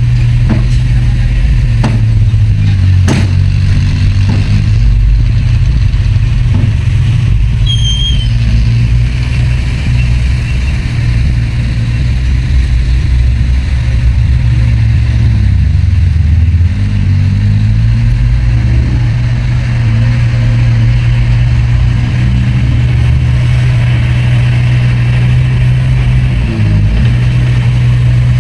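Heavy diesel engine of earthmoving machinery running loudly and steadily, its pitch dipping and recovering a few times as the load changes. A few sharp knocks come in the first few seconds, and a brief high squeal about eight seconds in.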